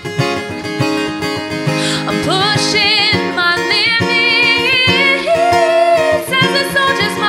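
A woman singing with vibrato on held notes, accompanying herself on a strummed acoustic guitar.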